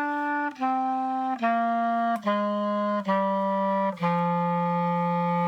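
Clarinet playing six held notes in a slow descending scale, each lower as more tone holes are covered; the lowest, starting about four seconds in, is held for about two seconds.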